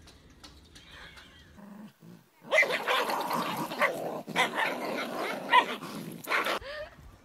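Dogs growling and barking in rough play, tugging at a toy, in a loud stretch of about four seconds that starts some two and a half seconds in.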